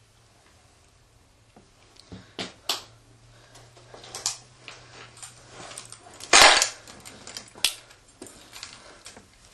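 A scattered series of sharp clicks and knocks, with one louder short burst about six seconds in, over a faint steady hum that stops at about that moment.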